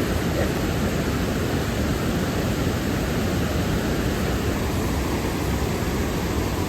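Steady rush of flowing water: an even, unbroken noise with no distinct events.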